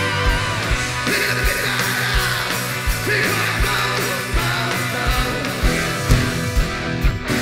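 A live rock band playing: electric guitar and bass over a kick drum beating steadily.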